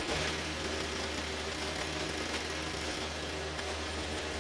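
A small petrol engine running steadily at idle, with no revving.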